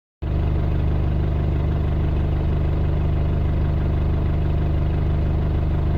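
An engine running at a steady idle, low and even throughout.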